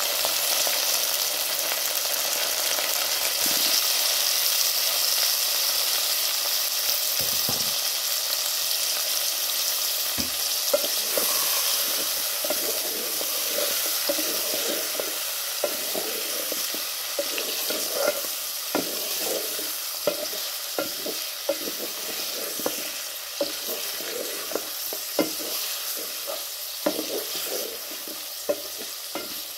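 Pieces of smoked beef and fried onions sizzling in hot oil in an aluminium saucepan. From about a third of the way in, the sizzle is joined by frequent short knocks of a wooden spoon against the pot as the meat is stirred.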